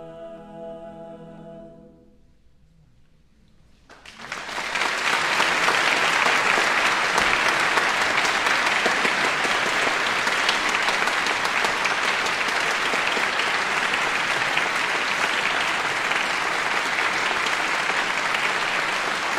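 A choir's final held chord fades out about two seconds in. After a brief hush, the audience starts clapping at about four seconds and the applause goes on steadily.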